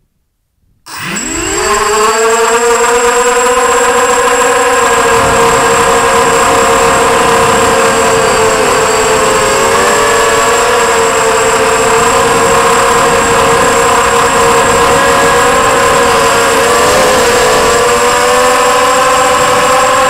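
Electric motor and propeller of an FPV model aircraft, heard through its onboard camera: they spin up with a quickly rising whine about a second in, then run at a steady high pitch with slight wavers, over a thin high steady whistle.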